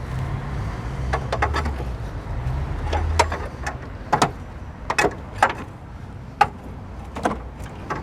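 Scattered sharp metallic clinks and knocks of hand tools and a loosened front lower control arm being handled under a car, over a low rumble during the first few seconds.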